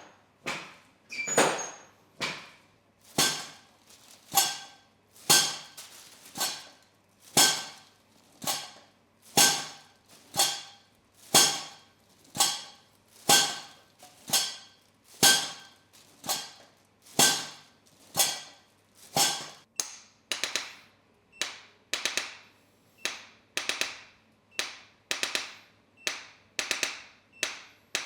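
A steady series of sharp knocks, about one a second, each with a short ringing tail. From about two-thirds of the way in, each knock comes as a quick double or triple.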